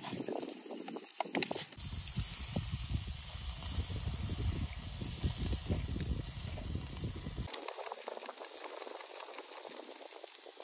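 Satay skewers sizzling on a grill, a steady hiss. A low rumble comes in about two seconds in and cuts off suddenly after about seven and a half seconds.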